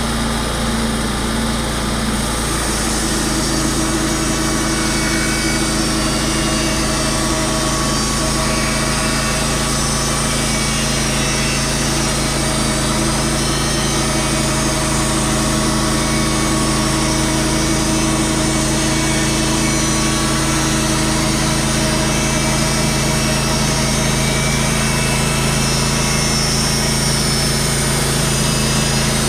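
Small gas engine of a sawmill running steadily under load as the blade cuts through a cedar log, with a change in the engine note about two and a half seconds in.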